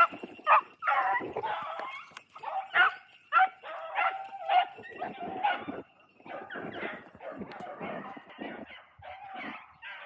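Hunting beagles giving tongue while running a rabbit: short yelping barks in quick succession.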